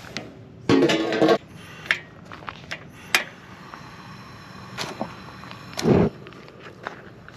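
A portable propane fire pit being lit: sharp igniter clicks, then the gas catching in a short loud burst about six seconds in. A short loud buzzing sound comes about a second in.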